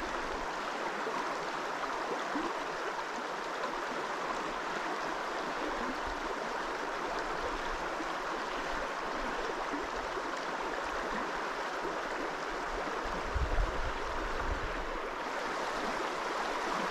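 Steady rush of flowing river water, with a brief low thump about thirteen seconds in.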